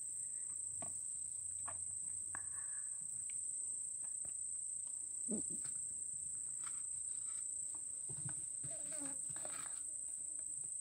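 A steady, high-pitched drone of insects, with faint scattered clicks of a plastic spoon scooping rice onto a plate.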